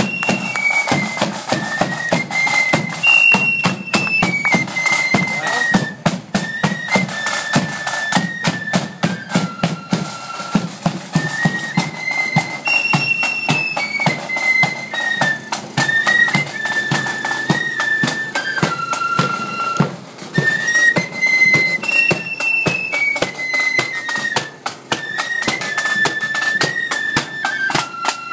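Marching flute band playing a march tune in unison on flutes, over steady bass drum and side drum strokes. The melodic phrase repeats about every ten seconds.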